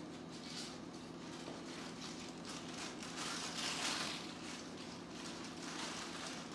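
Tissue paper rustling and crinkling as a pet bird pulls and tears at it with its beak, swelling and loudest about three to four seconds in, over a steady low hum.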